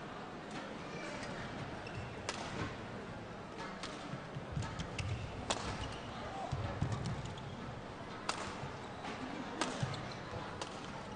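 Badminton rally: rackets striking the shuttlecock, a sharp crack every few seconds, with lighter clicks and dull thumps between, over the steady noise of a large sports hall.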